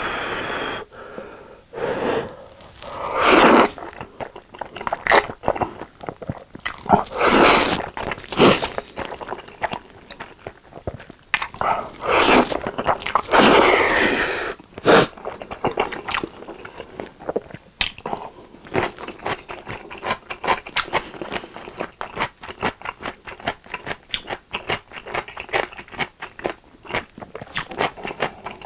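Close-miked eating of carbonara Buldak stir-fried instant noodles: several loud slurps of noodles in the first half, then steady wet chewing with many quick mouth clicks.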